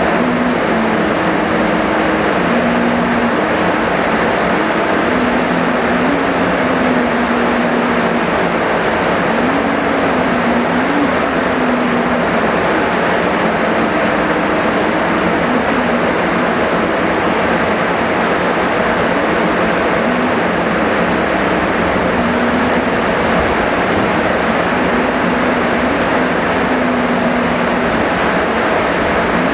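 Heavy rain falling in a steady, dense hiss without a break. A faint low tone wavers slowly in pitch underneath it.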